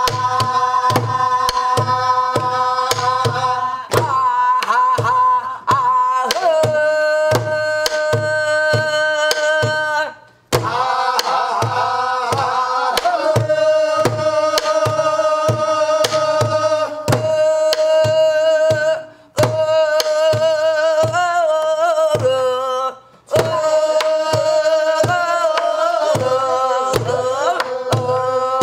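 A woman singing pansori in long, held, wavering notes, keeping time with steady strokes on a buk barrel drum. The singing stops briefly a few times.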